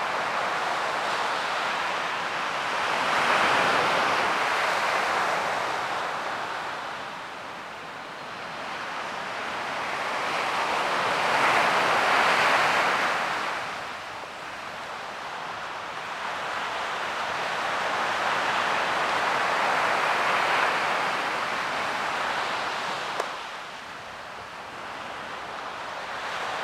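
Ocean surf: waves breaking and washing in, the roar swelling and ebbing about every eight seconds, three times.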